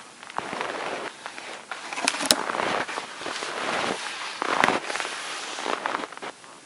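Skis crunching and swishing through deep snow in irregular bursts as the skier moves, with a few sharp clicks about two seconds in and again past the middle.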